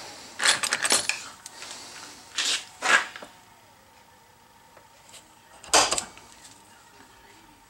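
Metal hand tools knocking and clinking on a wooden workbench while an aluminum plate is marked out with a combination square and a scriber. A cluster of light clicks comes in the first second, two sharp knocks about two and a half and three seconds in, and one more near six seconds.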